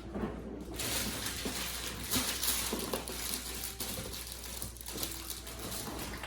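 Kitchen containers clattering as they are handled, over a rushing hiss that starts about a second in, with a few knocks.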